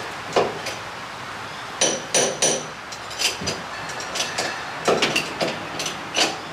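About eight sharp metal knocks and clinks at irregular intervals as a large tractor-crane tyre is worked onto its split wheel rim.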